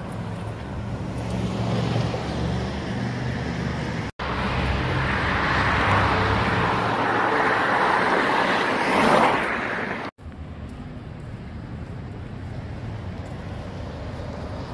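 Road traffic on a multi-lane street: a steady hum of passing cars, swelling as a car drives by close about nine seconds in. The sound drops out abruptly for a split second twice.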